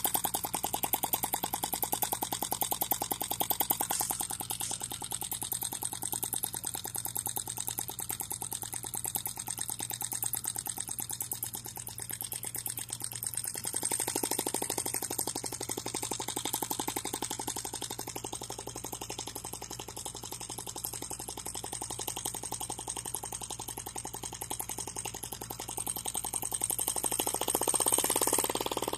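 Miniature single-cylinder four-stroke model engine running, its rapid firing strokes a fast, even stream of knocks, getting louder near the end. A steady low hum sits underneath.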